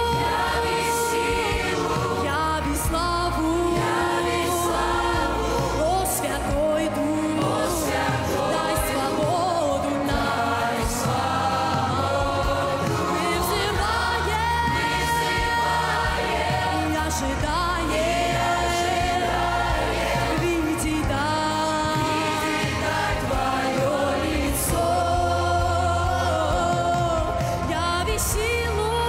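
A mixed choir and female lead singers on microphones singing a Russian-language Christian worship song over instrumental backing with a steady beat.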